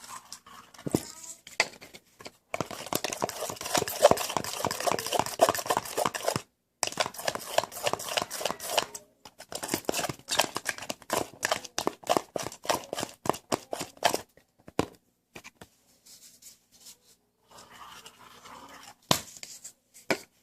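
A utensil stirring glue, shaving cream and contact solution in a bowl as it thickens into slime, in rapid, irregular scraping strokes: two long spells of fast stirring, then slower, scattered strokes near the end.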